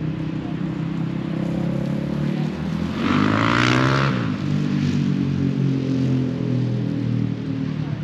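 Road traffic with vehicle engines running steadily. About three seconds in, a vehicle passes close by, loudest for about a second, its engine pitch falling as it goes past.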